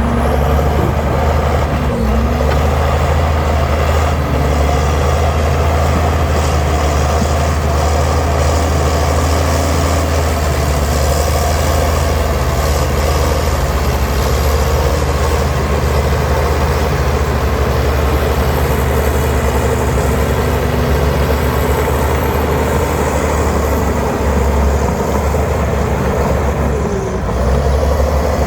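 Diesel engine of heavy earthmoving machinery running continuously with a steady deep rumble.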